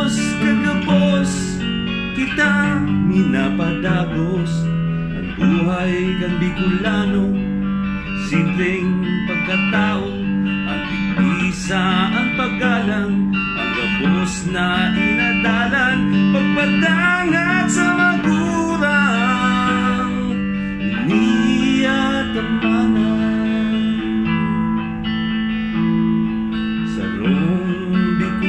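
Electric guitar playing a lead line with string bends and vibrato over sustained low notes, in an instrumental break of a song.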